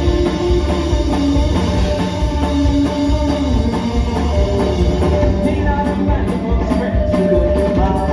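Live alt-country band playing a song through a PA: electric guitar and steel guitar over a steady beat, with singing.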